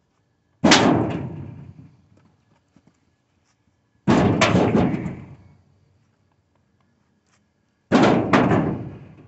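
Split firewood logs thrown one at a time into a pickup truck's bed, each landing with a bang and a short clatter that dies away within about a second. This happens three times, roughly every three and a half seconds.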